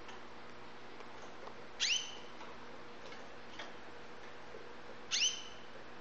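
Young white canary giving two short rising chirps about three seconds apart, with a few faint ticks of it moving about the wire cage.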